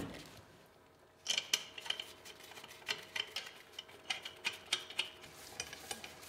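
Lug nuts being spun by hand onto the wheel studs of an aluminum wheel: irregular small metallic clicks and clinks in short clusters, starting about a second in.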